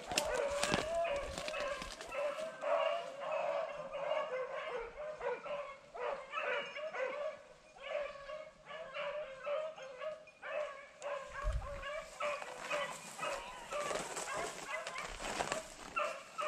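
Rabbit-hunting beagles baying on a rabbit's trail: a run of short, repeated bawls in quick succession with brief gaps.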